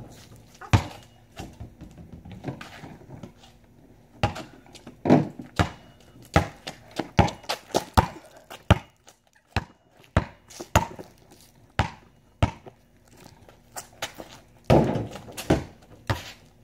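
A basketball bouncing and being dribbled: a string of sharp, uneven thuds, some in quick runs, with a louder cluster near the end.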